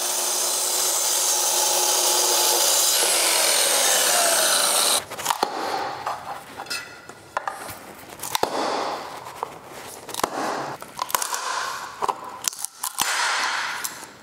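Festool track saw running through wooden flooring for about five seconds. Then, abruptly, a pry bar levers the cut floorboards up, giving irregular sharp cracks, knocks and creaks of splitting wood.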